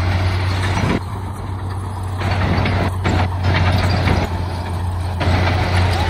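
Heavy diesel engine running steadily, with a harsh noise that cuts in and out several times over it.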